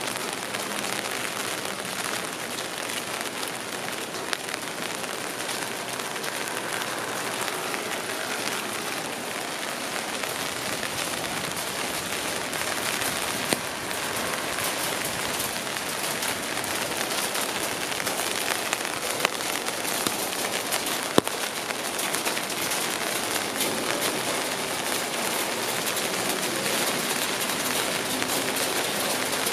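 Steady rain falling on street surfaces, an even hiss broken by a few sharp ticks.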